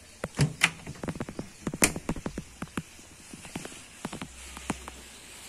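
Small wooden door on a pushcart being opened and handled: a quick series of knocks and clicks of wood and a metal hinge, loudest in the first two seconds and thinning out after that.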